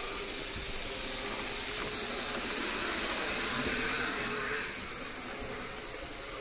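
N-scale model train running along the layout track, a steady whirring rush that grows louder about three seconds in and fades again as the train passes close.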